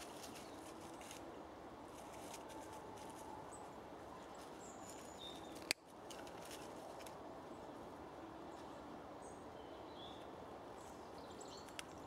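Small birds giving a few short, high chirps at a feeder, over steady outdoor background noise. A single sharp click sounds about halfway through, and a fainter one near the end.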